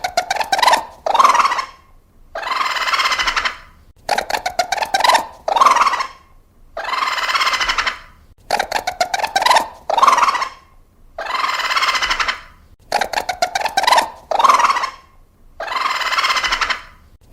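Raccoon calls: a long noisy call followed by a quick run of chittering clicks and two short calls, the same sequence repeating about every four seconds.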